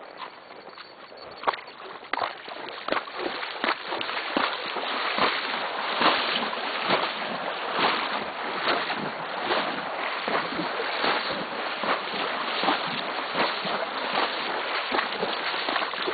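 Horse wading at a walk through a shallow pond, its legs splashing and sloshing the water with each stride. The splashing grows louder about two seconds in as the horse moves out into the water.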